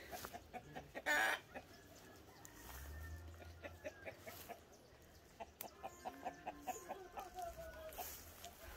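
Free-ranging chickens clucking in short calls, busiest in the second half, with one falling call near the end. A brief loud burst about a second in is the loudest sound.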